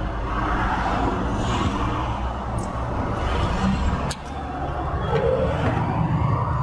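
Steady low engine rumble from a nearby motor vehicle, with two short light clicks around the middle.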